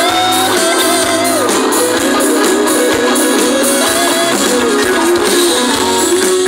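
Live pop-rock band playing an instrumental passage: a lead guitar melody that bends in pitch, over keyboard chords, bass and drums with steady cymbals.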